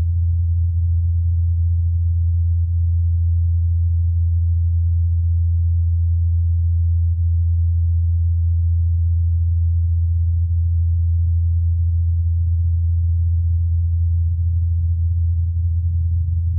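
Ingenuity Mars helicopter's rotor blades in flight, heard as a steady low hum, recorded on Mars by the Perseverance rover's microphone.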